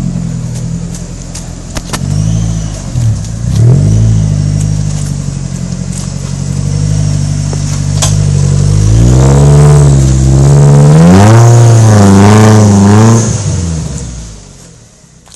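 Supercharged GM Tracker 4x4 engine, converted to run on ethanol, running loud and steady with a few short dips in revs. About nine seconds in it is revved hard up and down several times, with a high whine riding on top. The sound fades away near the end.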